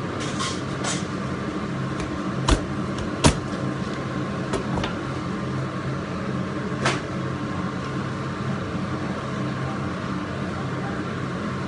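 Steady hum of commercial kitchen equipment, with a few sharp knocks from work at the counter; the two loudest knocks come close together about two and a half seconds in, and a softer one follows a few seconds later.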